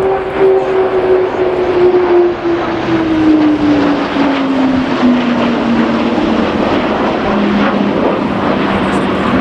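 Low flypast of an Airbus A400M turboprop tanker with Tornado jets in formation. A strong propeller hum falls steadily in pitch as the aircraft pass, then levels off, over a loud rushing engine noise.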